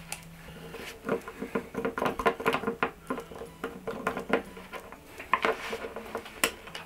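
Irregular small clicks and taps of a Kaiweets KM201 pocket multimeter's plastic case and its test leads being handled on a tabletop, while its battery-cover screw is undone with a small Phillips screwdriver.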